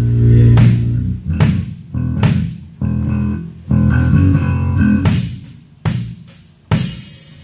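Band playing: bass guitar and guitar notes under drum kit hits and cymbal crashes, in short stop-start phrases.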